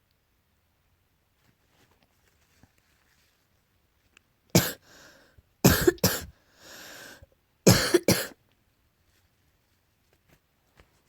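Allergy coughing in three bouts: a single cough about four and a half seconds in, then a double cough near six seconds, a breathy sound, and another double cough near eight seconds.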